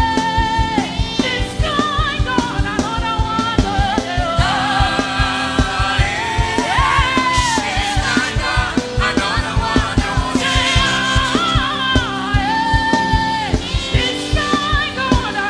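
Gospel worship music: singing over a band with a steady, fast drum beat.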